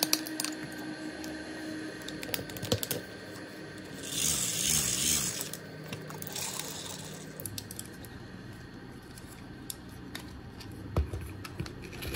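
Hard plastic toy parts clicking and rattling as they are handled and fitted together, with a short whirr of the hand-cranked gears about four seconds in.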